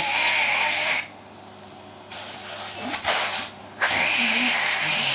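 Vacuum cleaner motor running with a steady high whine. It cuts out abruptly about a second in and starts again about four seconds in.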